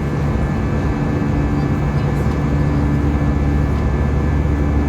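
Airbus A320 jet engines and airflow heard inside the passenger cabin: a loud, steady noise with an even low hum underneath.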